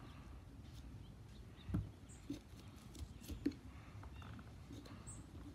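Faint scratching and a few soft clicks of a small pumpkin carving tool working at the pumpkin's flesh, over a low steady rumble.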